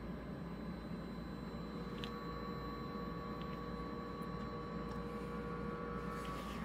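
Quiet electronic drone from an amplified improvised sound setup: a steady hiss and low hum, with faint held tones coming in about a second and a half in, and a few light clicks.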